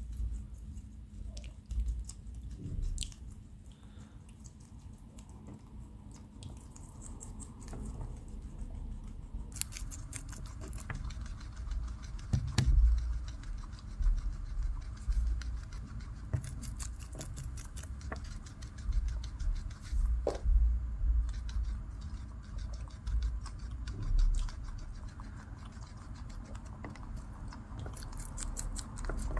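Guinea pigs chewing raw romaine lettuce and carrot, a dense run of quick, fine crunching clicks that gets busier partway through. A few low knocks stand out along the way.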